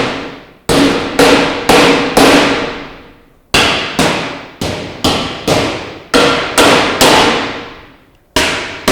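Plastic push pins being knocked into the holes of a sheet-steel cabinet, each blow a sharp strike with a brief metallic ring from the panel. There are about a dozen blows at roughly two a second, with a short pause a little after three seconds in and another near the end.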